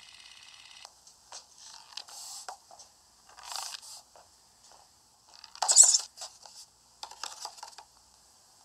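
Title music cuts off about a second in. It is followed by scattered short bursts of crunching and scratching: a clay-animated hamster's sound effects as it moves about inside a cardboard box. The loudest burst comes about six seconds in.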